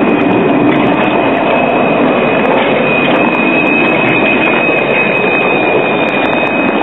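Alstom Citadis tram running past on its rails, with a steady high-pitched wheel squeal over the rolling noise that grows louder about halfway through.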